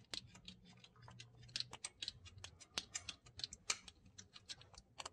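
Faint, irregular small metallic clicks and ticks, several a second, as a nut is threaded by hand onto a stud at a Jeep's distributor ignition coil.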